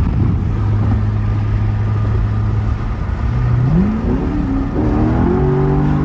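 Car engine heard from inside the cabin, cruising steadily at first, then accelerating about three seconds in, the revs climbing in several steps.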